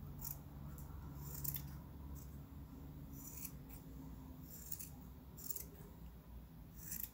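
Scissors snipping through the yarn strands of a pompom, trimming them to an even length: several short, faint snips at irregular intervals.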